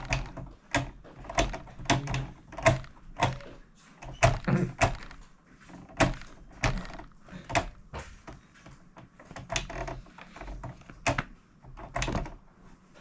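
Irregular sharp clicks and knocks of a small white plastic sewing machine being handled and adjusted by hand, about one or two a second.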